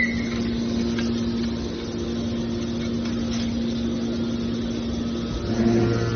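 Metal baler's hydraulic power unit running with a steady hum, getting louder and deeper about five and a half seconds in.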